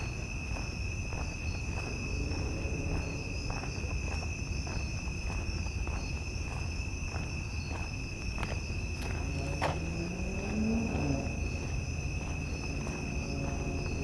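A steady, high, unbroken trilling of night insects over footsteps at about two a second. A low hum rises and then falls in pitch around ten seconds in.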